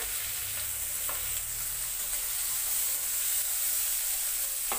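Onions, curry leaves, green chillies and cashews sizzling steadily in hot ghee in a kadai, with a spatula stirring through them and a few light taps against the pan.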